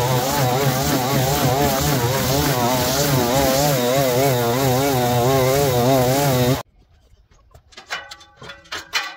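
String trimmer running at high speed, cutting long grass, its pitch wavering as the line bites. It cuts off abruptly about two-thirds of the way through, and a few sharp knocks follow near the end.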